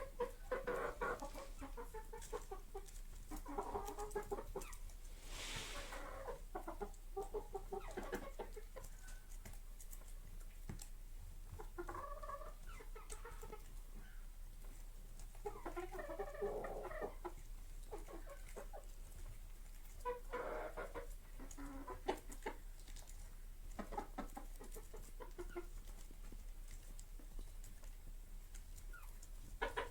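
Chickens clucking, in short bouts of calls every few seconds.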